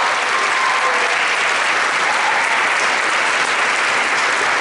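Audience applauding steadily at the end of an a cappella song.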